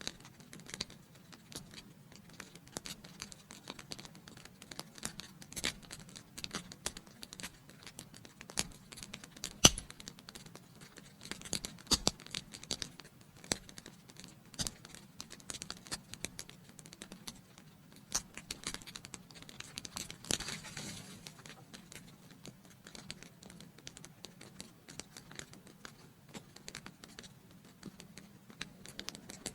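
Wood fire in a fireplace crackling: a steady stream of small pops and snaps, with one sharp, loud pop about ten seconds in and a brief soft hiss around twenty seconds in.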